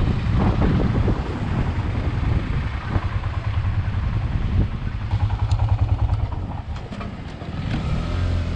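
Royal Enfield Himalayan 411's single-cylinder engine running at low speed through traffic, its exhaust beat pulsing steadily.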